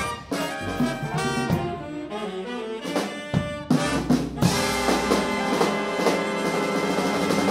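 Big band jazz ensemble of saxophones, trumpets, trombones and drums playing short, accented ensemble hits with drum strokes, then about four and a half seconds in the whole band holds one long sustained chord.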